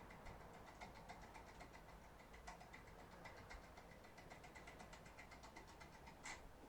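Faint, rapid light clicking of a foil lock pick being worked inside a six-pin Kale cylinder lock, several ticks a second, with one sharper click near the end.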